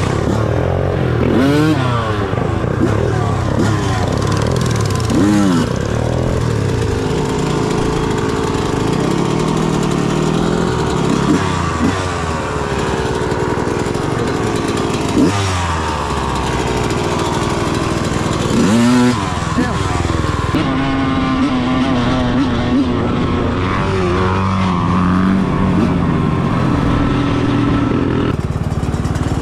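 Dirt bike engine running and revving, its pitch climbing and dropping several times as it accelerates and backs off.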